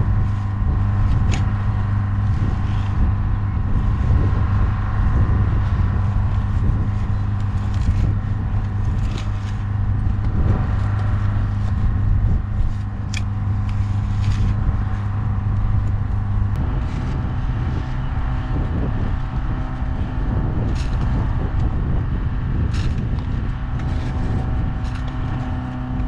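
Excavator engine running steadily while digging in clay, with a few short knocks and scrapes from the bucket. The engine note changes about two-thirds of the way through.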